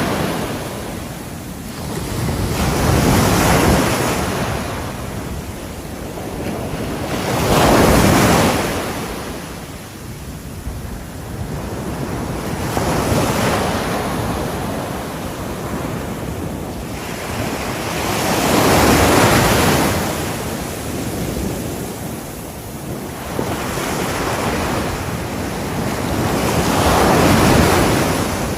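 Ocean waves breaking on a shore: six surges that build, crash and wash back, about every four to six seconds.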